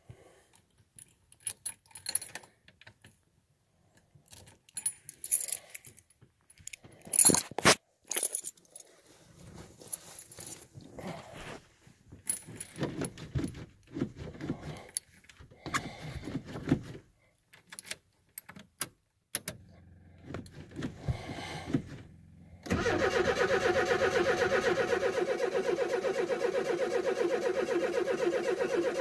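Keys jangling with scattered clicks as they are handled, then about 23 s in a car engine starts abruptly on a cold start and runs steadily.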